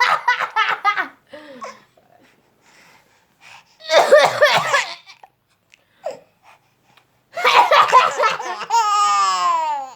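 A baby laughing in bursts of belly laughter, set off by her brother's coughs. Near the end, one long laugh slides down in pitch.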